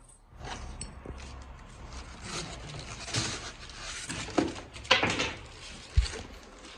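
Packaging being handled while a mixer grinder is unboxed: plastic wrap and foam inserts rustle and creak against cardboard. A few sharp knocks come past the middle, and a short dull thud about six seconds in.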